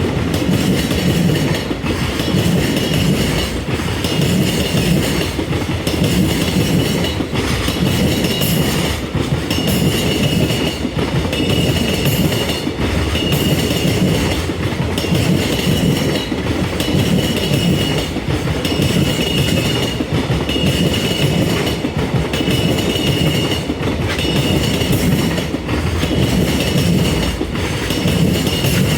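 A long freight train's wagons rolling past at speed, their wheels clattering over rail joints. The clatter comes in a regular rhythm of about one car every second and a half, with a high ringing tone that recurs in step with it.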